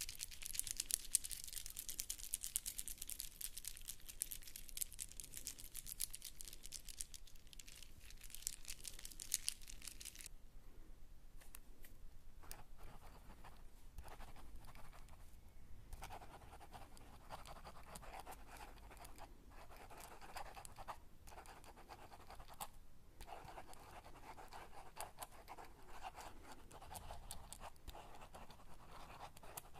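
Close-miked ASMR scratching sounds. A dense, crisp, crackly scratching runs for about the first ten seconds, then gives way to softer, lower scratching that stops and starts with short pauses.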